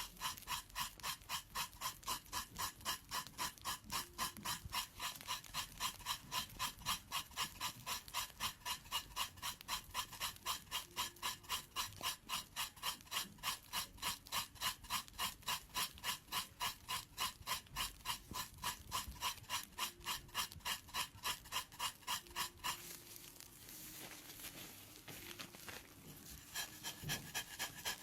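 Pedicure blade scraping thickened skin off a foot with athlete's foot, in quick, even strokes about three a second. The scraping stops for a few seconds near the end, then starts again.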